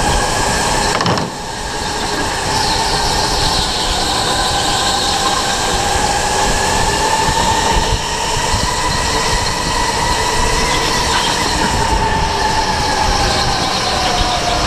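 Onboard sound of an electric indoor go-kart at speed: a steady motor whine that slowly rises and falls in pitch with the kart's speed through the corners, over tyre and track noise. The whine dips briefly about a second in.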